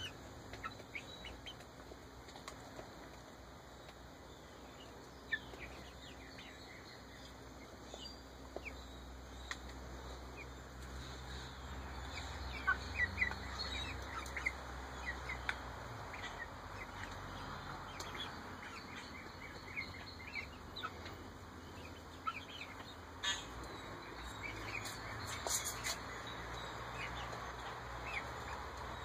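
Young Ameraucana chickens peeping: scattered short, high chirps, more of them in the second half, with a few sharp clicks.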